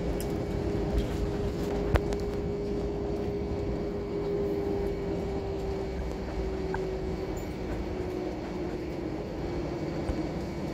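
Airliner cabin noise as the jet rolls out on the runway after landing: a steady rumble of engines and wheels, with a faint tone slowly falling in pitch as the aircraft slows. A single sharp click about two seconds in.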